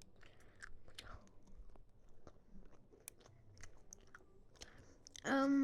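Faint, irregular scratches and clicks of a pen writing on paper. Near the end comes a short hum from a young voice.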